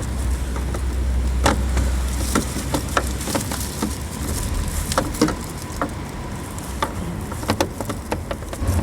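Scattered sharp clicks and taps of hands working plastic parts at the back of a car headlight, pressing and turning the rear dust cap to lock it. A low rumble runs under the first few seconds.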